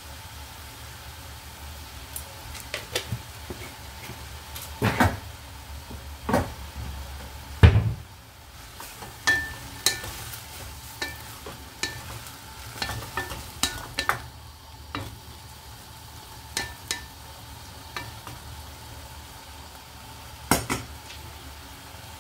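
A wooden spatula stirring and scraping bacon and string beans in a pan, giving irregular knocks and scrapes against the pan. Under it the food sizzles steadily as the added water cooks off; the loudest knock comes a little before the halfway point.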